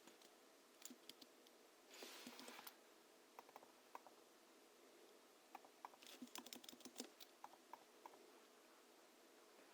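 Hansung GHL-5X keyboard typed on in short, scattered bursts of keystrokes, its springs lubed with Krytox 103 and 107 and fitted with 50g rubber domes. There is a brief rustling noise about two seconds in and a quicker run of keys around six to seven seconds in.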